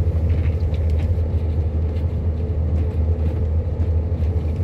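Steady low drone of a vehicle's engine and road noise, heard from inside the cab while driving at a constant pace.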